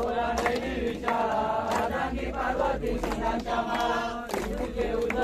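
A group of voices chanting a devotional song together, with hand claps keeping time.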